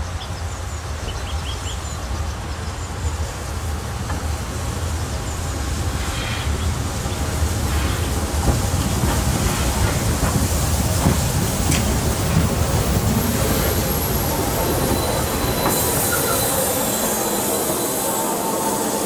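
Class 52 steam locomotive and its train rolling slowly into a halt, a low rumble growing louder as it nears, with squealing from the wheels and brakes as it stops. Near the end a loud hiss of steam starts.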